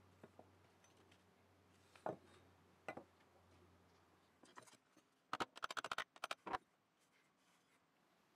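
Quiet handling of a metal tool on wooden boards: a few light, separate knocks, then a quick run of about ten sharp clicks a little past the middle.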